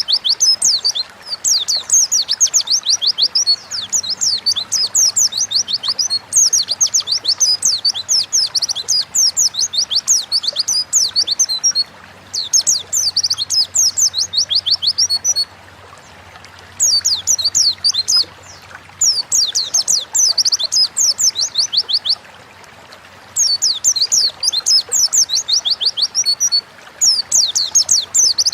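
White-eye (pleci) singing a fast, high twittering song of rapid sweeping notes, in repeated phrases of two to four seconds with short pauses between.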